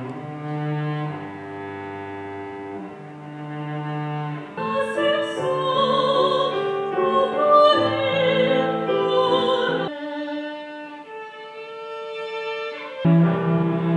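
Classical chamber music: cello and bowed strings playing slow, held notes over a low bass line. A higher melody with vibrato comes in about five seconds in. The music thins out a little after the middle, and the ensemble comes back fuller just before the end.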